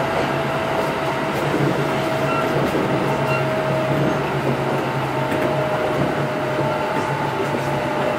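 Kintetsu 8810 series electric train running: a steady rumble of wheels on rail with a low hum and a thin motor whine that drops slightly in pitch about halfway through.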